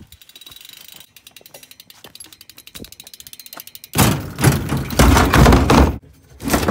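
BMX bike's rear hub ratchet ticking rapidly as the wheel turns, followed about four seconds in by loud clattering and knocking as the bike is hauled out and bangs against things, with one more knock near the end.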